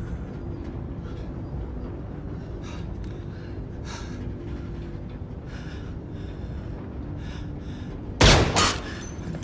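Steady low drone of aircraft engines heard from inside the cabin, with short gasping breaths, then one loud bang near the end.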